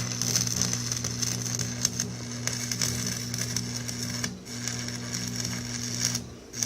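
Electric arc welding on a steel wheel-rim patch: a steady crackling arc over an electrical hum, which stops briefly twice, just past the middle and near the end, as the arc is broken and struck again.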